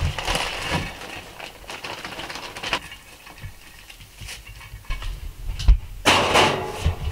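Plastic packet crinkling and rustling as raw beef mince is tipped out of it into a ceramic dish, with a few soft knocks. A louder rustle about six seconds in.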